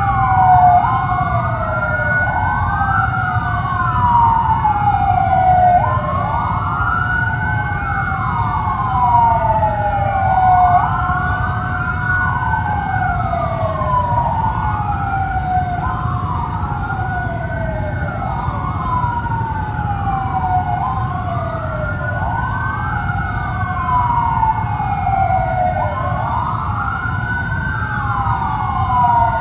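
Tsunami warning siren wailing: several overlapping tones rise and fall, one cycle every two to three seconds, over a steady held tone and a low rumble underneath.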